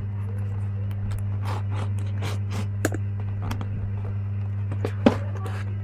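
A cardboard shipping box being handled and turned over: short scrapes and rustles of the box and its tape, with a few sharp clicks, the loudest about five seconds in, over a steady low hum.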